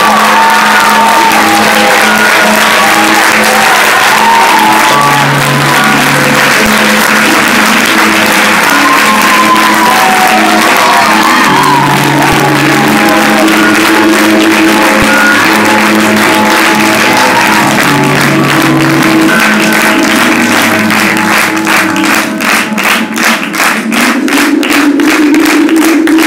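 Music playing with sustained notes over continuous audience applause. Near the end the applause turns into rhythmic clapping in unison, about three claps a second.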